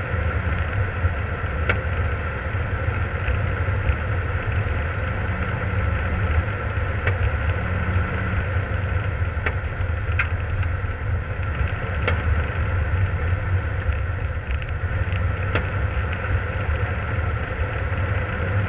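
Jeep engine running steadily as the vehicle drives along a snow-covered trail, heard from a hood-mounted camera, with a few sharp ticks from the vehicle at intervals.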